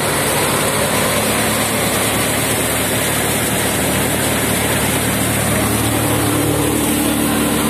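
Tractor-driven Harnam four-fan paddy thresher running steadily while threshing paddy: a loud, even mechanical din of the spinning threshing drum and fans, with a low steady engine hum under it.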